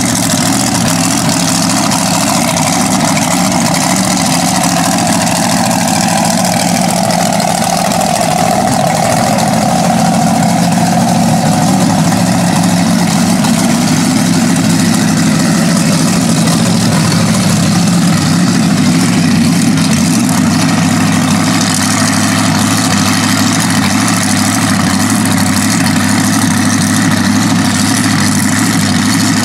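Mega mud truck's big engine running at a loud, steady idle as the truck rolls slowly, with no hard revving.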